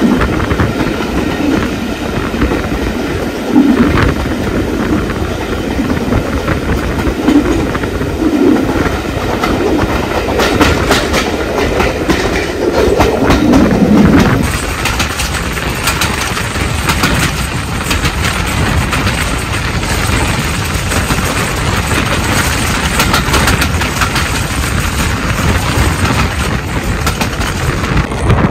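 Jacobite steam train's carriages running along the track: a steady rumble with the clickety-clack of the wheels over rail joints, the clicks more distinct in the second half.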